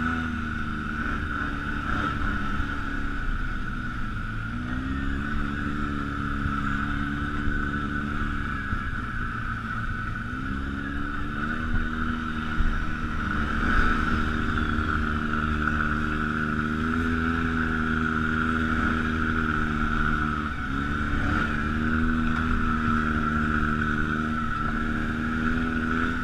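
ATV engine running on the move, its pitch climbing and dropping several times as the throttle is opened and eased off, with a steady hiss over it.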